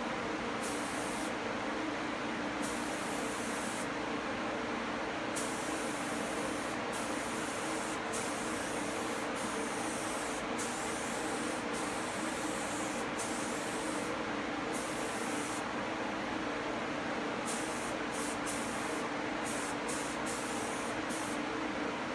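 HVLP spray gun spraying stain in a series of passes, its hiss starting and stopping with each trigger pull, the passes coming shorter and quicker near the end. Under it runs the steady hum of the spray-booth fan.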